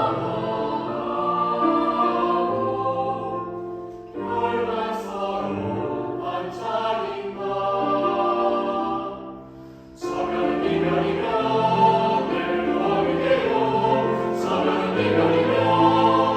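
A choir singing in held chords. The singing fades away twice and comes back suddenly, about four and ten seconds in.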